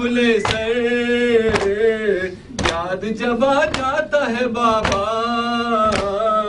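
A man sings an Urdu noha, a Shia lament, into a microphone in long held, gently sliding notes. Chests are struck in matam about once a second, keeping time under the singing.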